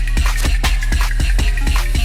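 Drum and bass music playing loud: fast, busy breakbeat drums over a steady, heavy sub-bass.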